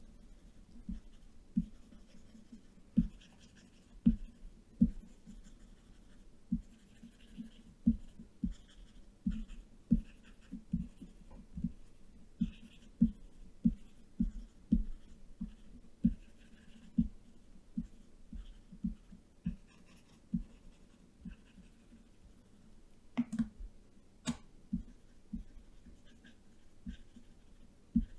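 Irregular soft clicks and taps, often several a second, with faint scratchy strokes between them, from a computer pointing device being worked on a desk during brush strokes. Two sharper clicks come about 23 and 24 seconds in.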